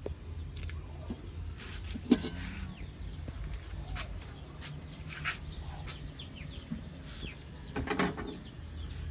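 Chickens clucking and calling at intervals, with one sharp knock about two seconds in, over a steady low rumble.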